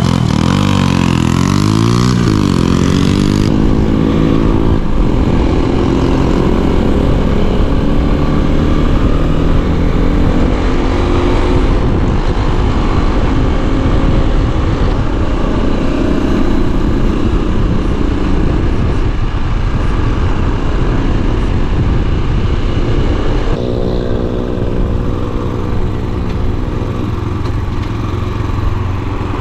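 Motoland XR 250 enduro motorcycle, a single-cylinder four-stroke, pulling away and accelerating. The engine note rises and drops back at each gear change in the first few seconds. It then runs at road speed with wind rush, and late on the wind falls away and the engine holds a steady note.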